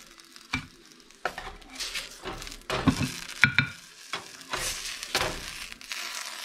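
White plastic spatula scraping and tapping against a nonstick frying pan, several separate strokes, as fried pizza pockets are scooped out, over the sizzle of frying in oil.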